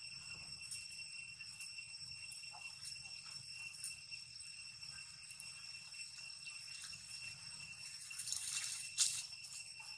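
Insects droning steadily on one high pitch, with scattered soft clicks and rustles and a short, louder rustling swell near the end.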